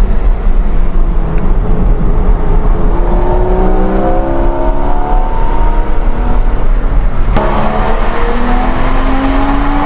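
Porsche Cayman engine and tyre rumble heard from inside the cabin, the engine note rising as the car accelerates a few seconds in. About seven seconds in the sound turns suddenly hissier as the car enters a tunnel, and the engine note climbs again.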